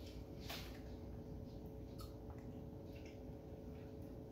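Faint short crunches and small clicks of someone biting into and chewing a biscuit, over a steady low hum.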